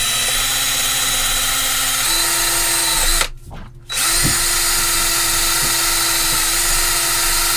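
Cordless drill spinning a wire brush bit against the marine diesel engine's metal, scrubbing off salt-water corrosion from a leaking mixing elbow. The motor's whine steps up in pitch about two seconds in; the drill stops for under a second a little after three seconds in, then runs again.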